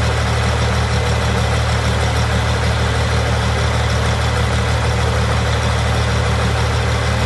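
Small tractor engine running steadily at low, even revs with no change in speed.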